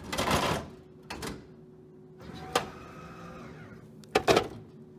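Bottle vending machine with a robotic picker arm finishing a delivery. A loud clunk comes at the start and a smaller knock a second later. A brief motor whine sounds around the middle. Near the end, sharp plastic clacks come as a hand pulls the bottle out through the delivery port.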